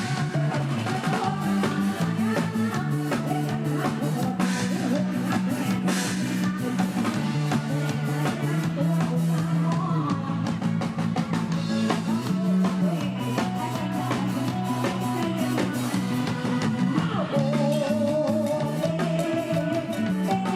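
Live band music from an Isan concert stage band: drum kit, bass and guitar playing with a steady beat, with a wavering melody line coming in near the end.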